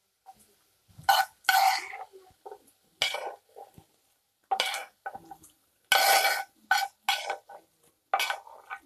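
A metal spoon scraping fried bacon fat and onion out of a frying pan, in about eight separate scrapes and clinks with short pauses between them.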